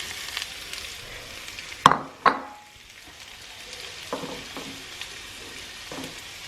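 Boiled potatoes and artichokes sizzling in olive oil in a frying pan, with two sharp clinks against the pan about two seconds in and a few lighter knocks later.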